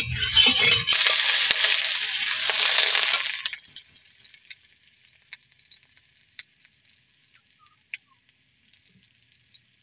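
Raw potato chunks sizzling loudly in hot mustard oil in a wok for about three and a half seconds, then settling to a faint hiss with a few pops.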